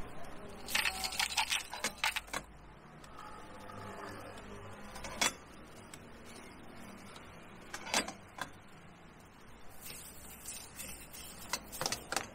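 Sharp clinks and knocks of hard objects being handled at a food stall: a quick run of clicks about a second in, single knocks around five and eight seconds, and another run of clicks near the end.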